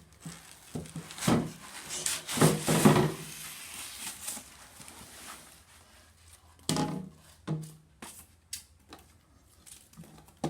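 Handling noises as an aluminium side pannier box is pulled out of its packaging: irregular scraping, rustling and knocks, a cluster of louder ones in the first few seconds and a few scattered knocks later.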